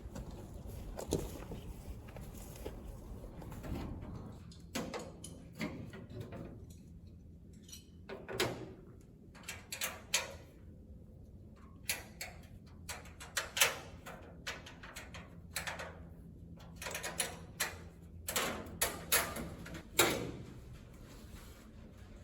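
Irregular knocks and clanks from hands working with tools and parts, in scattered sharp strikes, some in quick clusters. A low steady hum underneath fades out about four seconds in.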